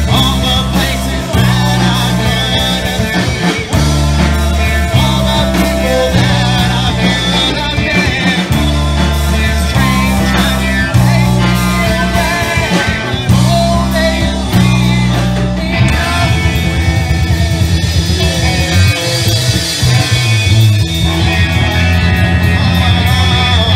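A live progressive rock band plays loudly, with electric guitars, electric bass, a drum kit and keyboards under a male lead vocal. For the first two-thirds the band plays a stop-start riff, then it settles into a steadier, denser groove.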